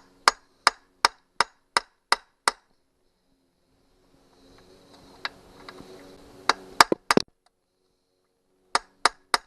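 Hammer tapping on metal: a run of sharp, evenly spaced strikes, about three a second, then after a pause a few more scattered strikes and three quick ones near the end.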